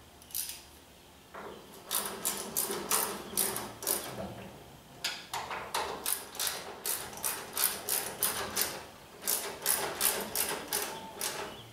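A ratchet clicking in quick, even runs, several clicks a second, in three spells with short pauses between, as it works on the parking brake assembly at the firewall.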